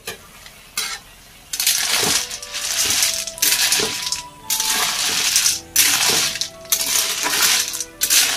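Snails in their shells rattling and clattering against a steel wok as they are stirred with a spatula, in about seven strokes of a second or less each, starting about a second and a half in.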